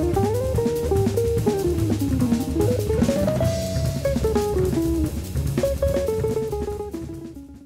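Background music with a drum beat under a moving melody, fading out near the end.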